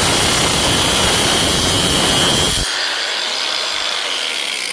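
Battery-powered Bauer cutting tool running on steel angle iron with a loud, steady grinding noise that cuts off about two and a half seconds in, leaving a quieter hiss.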